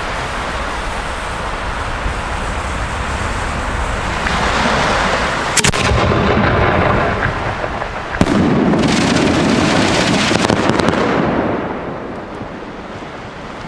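75mm Italian cylinder shell breaking overhead with a blue burst and spinners: a rising hiss leads into sharp bangs about five and a half seconds in. A heavier report comes about eight seconds in, followed by a loud rumble and a quick run of small crackling reports from the red flash bangers, which fade out near twelve seconds.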